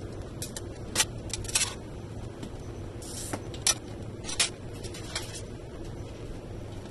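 A series of sharp clicks and taps as a clear glass sheet, a glass cutter and running pliers are handled and set down on a plastic grid cutting board, over a steady low hum.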